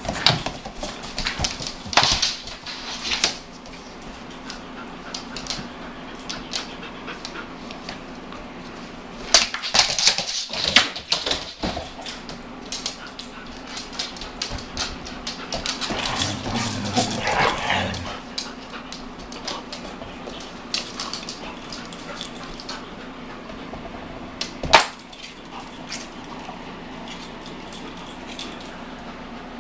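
Doberman puppy and a larger dog playing on a hardwood floor: claws clicking and scrabbling, bumps, and short bursts of dog vocalizing, with one sharp knock near the end.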